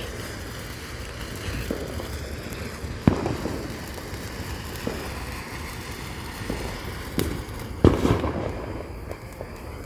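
Consumer fireworks going off: scattered bangs and pops, the loudest about three seconds in and just before eight seconds, each followed by a short crackle.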